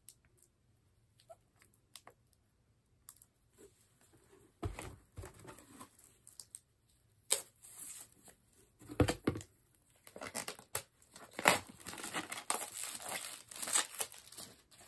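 Plastic shrink-wrap being cut with scissors and then torn and peeled off a set of booklets, crinkling loudly. It starts with a few light clicks and grows into a steady run of tearing and crinkling in the second half.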